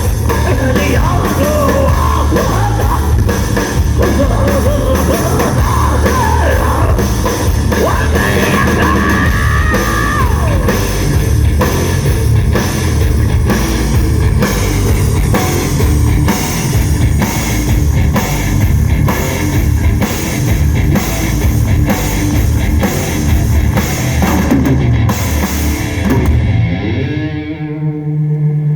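Live rock band playing with a drum kit, distorted electric guitars and a singer. The vocal line is over by about ten seconds in. Near the end the drums stop and a held guitar chord rings out.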